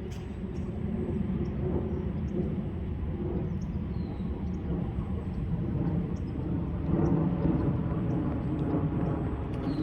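Radio-controlled 3D-printed model battleship running on the water: a steady low rumble with a thin high whine over it, swelling about seven seconds in.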